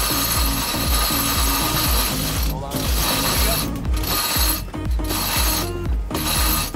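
Sailboat winch ratcheting as a line is hauled in by hand through it, its pawls clicking continuously.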